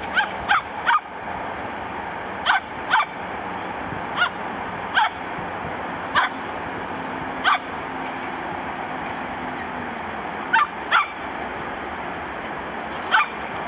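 Bearded collie puppy barking in short, high-pitched yips, about a dozen of them, some in quick pairs or a quick run of three, with gaps of one to two seconds between.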